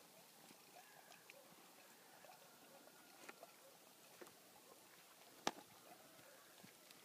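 Near silence with faint scattered ticks and one sharp click about five and a half seconds in: horses' hooves stepping on grass and dry ground.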